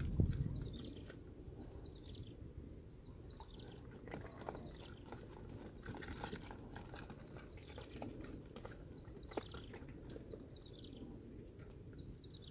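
Faint outdoor ambience: a small animal's call, falling in pitch, repeats several times over a low steady hiss, with a short low thump right at the start.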